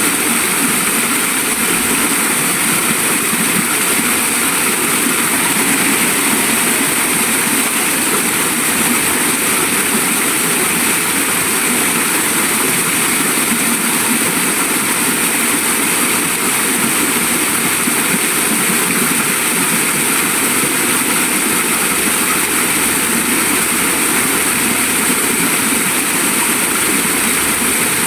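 Waterfall rushing in a steady, unbroken roar of falling water, loud and constant throughout.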